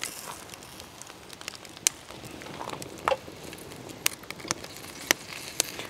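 Campfire crackling, with several sharp pops scattered through it and a soft rustle in the middle.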